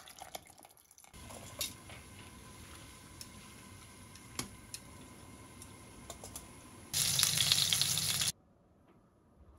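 Cooking sounds in quick succession. First, liquid pours into a blender jug. Next, water boils in a saucepan while metal tongs clink as greens are stirred. Last, and loudest, oil sizzles around a red sea bream fillet frying in a pan, cut off abruptly about a second before the end.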